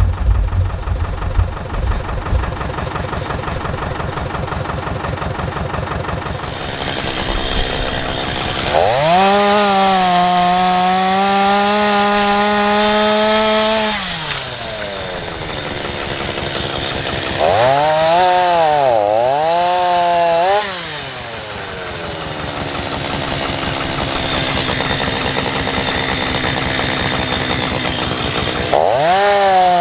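Chainsaw engine revving to full speed and sawing wood: a high steady note held for several seconds, then a stretch where the pitch dips and wavers under load, falling back to a lower note between cuts and revving up again near the end. A low engine rumble comes first.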